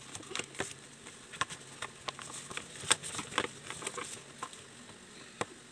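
Soft, irregular taps and light rustles of a paper workbook being handled, with about a dozen short clicks spread unevenly.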